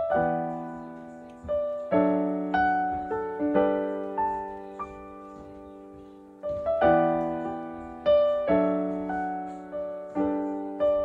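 Background piano music: slow chords, each struck and left to ring down before the next.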